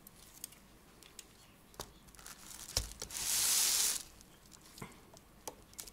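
A brass clock movement being handled and turned over: scattered light metal clicks, a dull thump about three seconds in as it is set down, then about a second of hissing rubbing noise.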